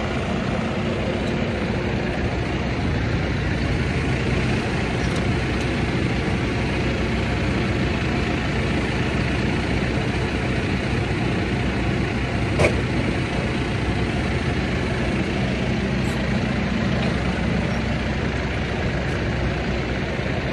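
Tractor engine running steadily while its loader-mounted shear grab cuts a grab of silage from the clamp face. There is one sharp knock about twelve seconds in.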